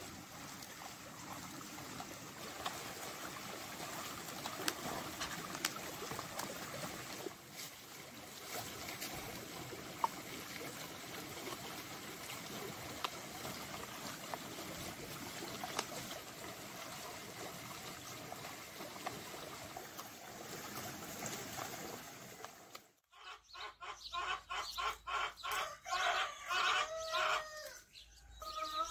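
Shallow stream running steadily, with small wet clicks of hands kneading minced meat in a plastic bowl. Near the end, after a sudden break, chickens clucking in short repeated calls.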